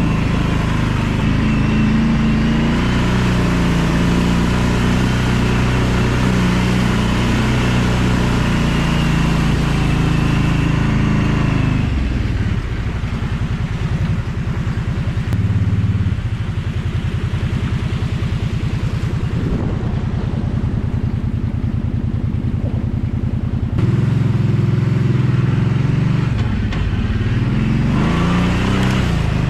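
ATV engine running while riding: steady at speed for the first dozen seconds, then dropping to low revs with an even, slow pulse for about twelve seconds, then picking up again near the end.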